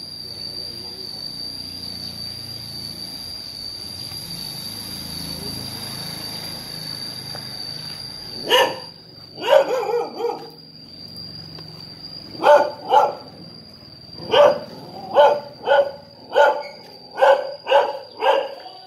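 A steady high insect drone. From about halfway through, a dog barks in an irregular series of about a dozen short barks.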